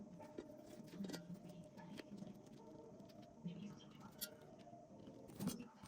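Faint, irregular clicks and light taps, with a louder knock near the end.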